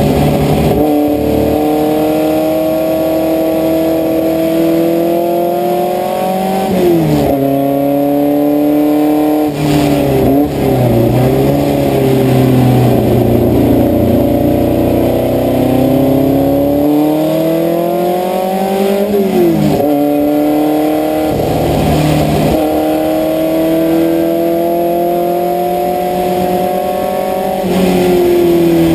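Puma race car's engine heard from inside the cockpit, pulling hard under full throttle. Its pitch climbs steadily and then drops sharply several times as the driver changes gear.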